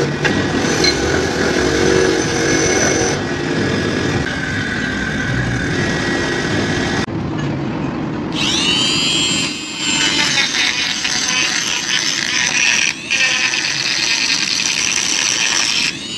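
Bench grinder wheel grinding rust off a steel hammer head, then, about eight seconds in, a handheld rotary tool spins up with a rising whine and grinds the hammer with a steady high-pitched whine.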